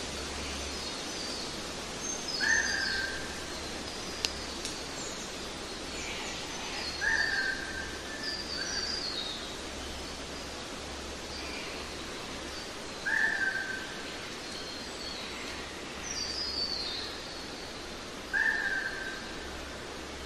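Birdsong over a steady hiss: one bird repeats a short call about every five seconds, mixed with higher, downward-stepping chirps from other birds. There is a single sharp click a few seconds in.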